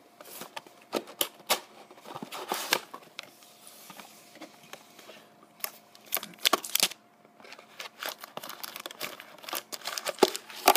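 Packaging of a trading-card box being handled and opened: irregular crinkling and rustling, with sharp clicks and scrapes coming in bursts and short quiet gaps.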